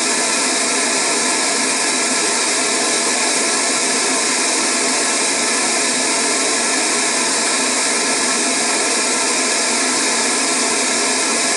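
Full-range pink noise played through a Diamond Audio MP65 6.5-inch coaxial motorcycle speaker mounted in a fairing pod: a steady, loud hiss, thin in the bass and peaky in the upper mids and lower treble.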